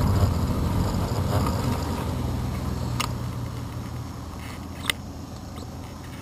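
Pickup truck engine idling close by, a low steady hum that fades away after about four seconds as the bicycle moves off, over road and wind noise. Two sharp knocks, about three and five seconds in.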